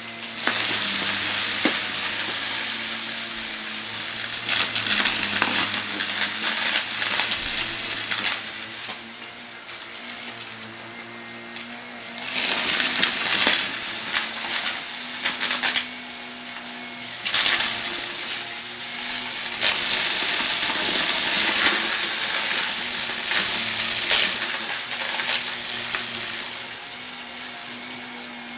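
Vacuum cleaner running and sucking up crunchy debris: a dense crackling rattle over the steady motor hum and airflow hiss, growing louder and softer by turns.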